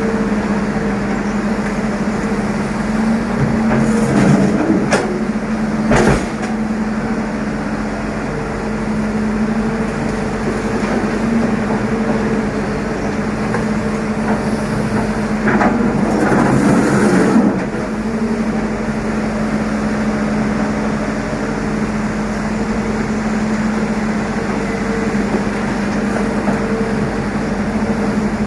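Excavator's diesel engine running steadily with a deep, even drone. Sharp metallic knocks come about four and six seconds in, and a louder rattling stretch about two seconds long comes midway.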